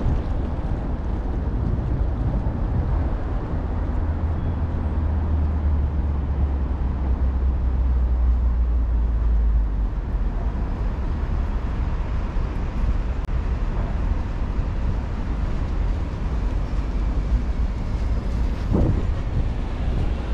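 Steady road-traffic rumble, with a heavier low rumble for several seconds in the middle.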